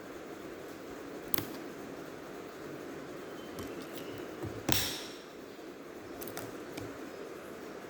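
Light clicks and one sharper snap, a little past halfway, as small hand tools and plastic parts are handled while taking apart an HP x360 laptop, over a steady low hiss.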